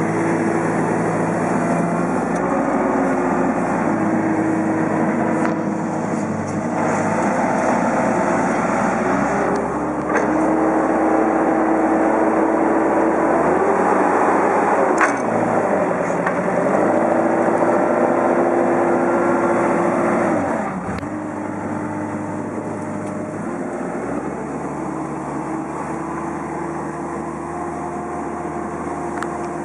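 Diesel engine of a Manitou rough-terrain four-wheel-drive forklift running steadily as heard from its cab, its pitch rising and falling a few times as it is revved while the machine drives and works the mast. It is louder in the middle and settles a little lower near the end.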